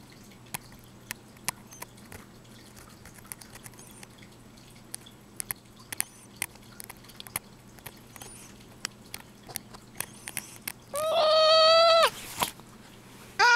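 A metal dental scaler ticks and scrapes against a cat's teeth in small, irregular clicks. About eleven seconds in the cat lets out a loud meow lasting about a second, and near the end it starts a second meow that rises in pitch.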